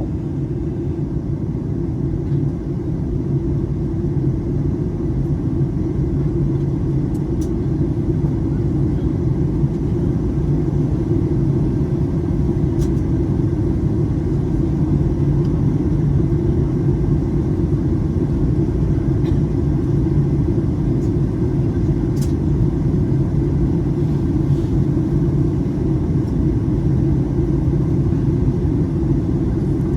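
Steady, loud low rumble of jet engines and airflow heard inside an airliner cabin on approach, with a few faint clicks.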